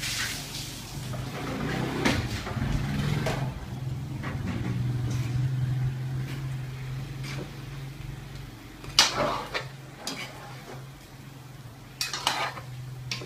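Metal ladle scraping a foil roasting tray and stirring turkey in a stainless steel pan, with sharp metal clanks, the loudest about 9 and 12 seconds in, over a steady low hum.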